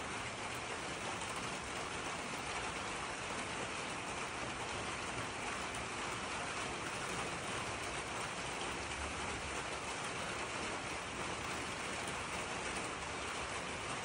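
A steady, even hiss of noise like falling rain, holding the same level with no single sounds standing out.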